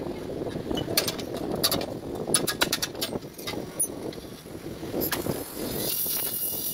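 Sharp metal clinks and knocks as the cut-open steel silencer shell of a Honda CD 70 is levered and worked with tongs, several in the first five seconds. Near the end a gas welding torch flame comes on with a steady high hiss as it is played on the silencer seam.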